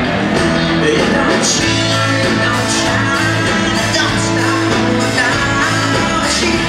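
Live country rock band playing a song: electric and acoustic guitars, bass, drums and keyboard, with a man singing lead.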